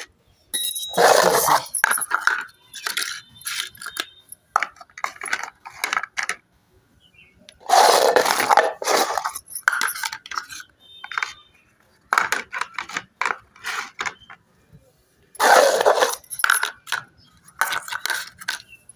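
Hard plastic bowls of a compartment snack tray clattering and clinking against each other and the tray as they are fitted into place, in irregular short knocks with a few brief ringing clinks. Three louder, longer stretches of handling noise come about seven seconds apart.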